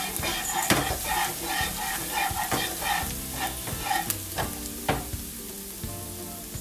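Minced garlic sizzling in hot oil in a nonstick wok while a metal ladle stirs and scrapes through it in quick strokes, about three a second, with a few sharp knocks of the ladle on the pan. The stirring eases off about four seconds in, leaving the sizzle.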